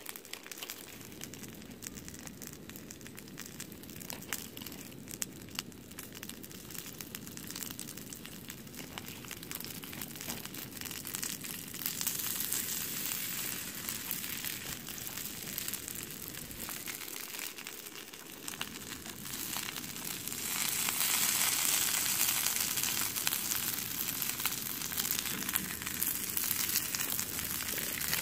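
Shrimp sizzling and crackling in a hot iron pan over a camping gas stove. The sizzle gets louder and hissier in two steps, partway through and again about two-thirds of the way in, as the shrimp cook.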